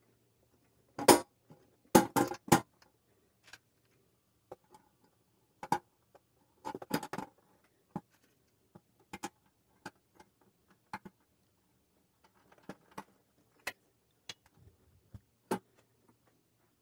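Scattered clicks and knocks of a slow cooker's stainless-steel base being pressed and fitted into place by hand, loudest about one and two seconds in, then lighter occasional taps.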